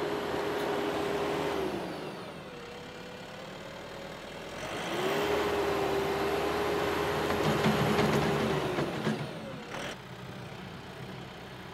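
Tractor engine held at high revs, easing off about two seconds in, revving back up a few seconds later and holding steady, then dropping back to a lower, quieter run near the end with a brief clunk.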